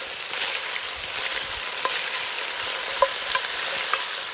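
Pieces of impala neck sizzling as they brown in hot fat in a cast-iron potjie, turned with a wooden spoon. A steady frying hiss runs under a few brief clicks about two, three and four seconds in.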